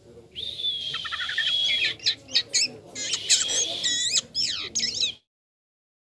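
A caged white-shouldered starling (jalak kapas) singing: a long held whistle, then a run of sharp chirps and fast, wavering whistles. The song cuts off suddenly about five seconds in.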